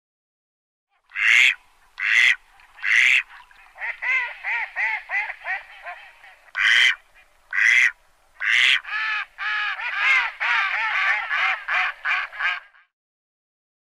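Mallard quacking: three loud, harsh quacks about a second apart, then a run of quicker, softer quacks, two more loud quacks, and a longer quick-fire series that stops near the end.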